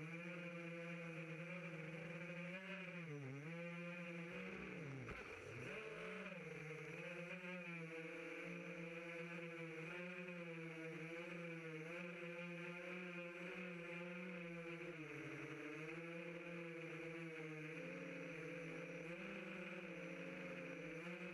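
Racing quadcopter's four Racerstar 2205 brushless motors and propellers droning steadily in flight, the pitch sagging and rising with the throttle, with clear drops about 3 and 5 seconds in.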